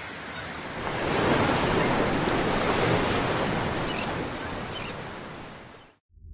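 Surf washing onto a beach. It swells about a second in and fades out near the end.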